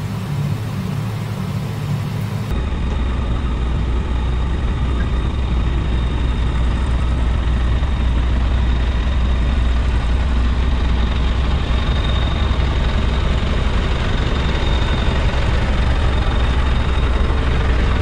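Backhoe's diesel engine running as the machine drives along a lowbed trailer deck. It is heard from inside the cab for about two seconds, then from outside as a steady low rumble.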